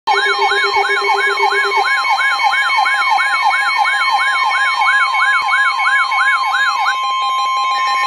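Weather alert radio sounding its alarm for a severe thunderstorm warning: a siren-like tone sweeping down and up about three times a second over a steady high alert tone. The sweeping stops about seven seconds in while the steady tone carries on.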